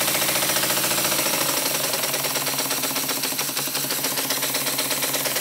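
Single-cylinder model horizontal steam engine running fast on compressed air, a rapid, even stream of exhaust beats with a hiss of air, as the air blows the leftover water out of the engine. The beat slows slightly about a second in.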